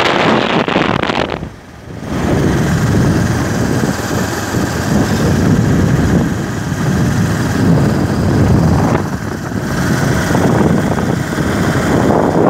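Motorcycle on the move, its engine running under wind rushing over the microphone; the noise drops away briefly about one and a half seconds in.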